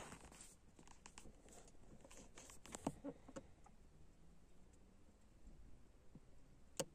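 Near silence with faint handling noise: a scatter of soft clicks and rustles in the first three seconds, then one sharp click near the end.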